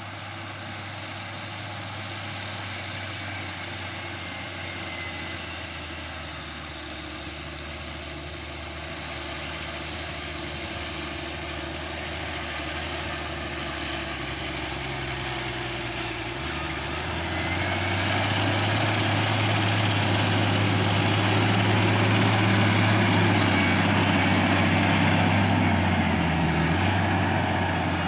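Forage harvester's engine and chopping drum running, heard from inside the cab. The engine note grows clearly louder about two-thirds of the way in, with a high whine over it that drops away near the end.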